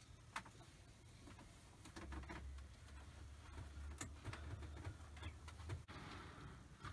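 00 gauge model railway running: faint, irregular clicks of model train wheels and track, with a low motor hum that starts about two seconds in and cuts off suddenly near the end.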